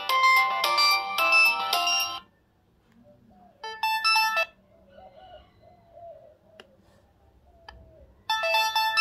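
Samsung SGH-T349 mobile phone ringtones played through the phone's speaker. One melody stops about two seconds in, a short burst of another tone sounds near the middle, and a new ringtone with a repeating note pattern starts near the end.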